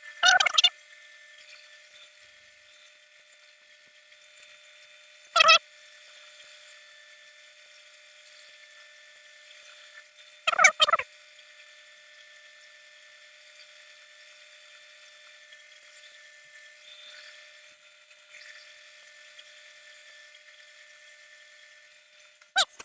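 A power tool's motor running with a steady high-pitched whine, broken by short, loud bursts about half a second, five and a half and eleven seconds in, and again near the end.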